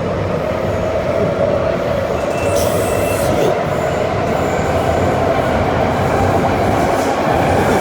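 Metro-Cammell DC electric multiple unit (MTR M-Train) running between stations, heard inside the car: steady rumble of wheels on rail and traction noise, with a whine that rises slightly as the level grows.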